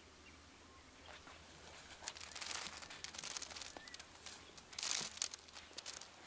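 Irregular dry, crackly rustling in short bursts, starting about two seconds in and loudest about five seconds in.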